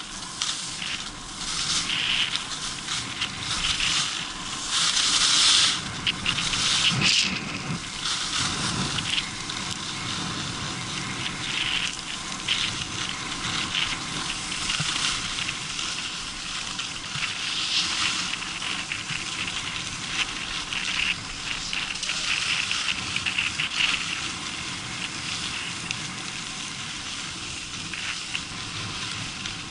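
Skis sliding and scraping over groomed snow: a continuous hiss that swells and fades with the turns, loudest a few seconds in.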